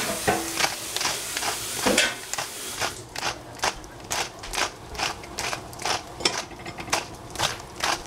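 A handheld twist spice grinder being turned, grinding in a regular run of short crunchy clicks about three a second. A steady high hiss sits under the first two seconds or so.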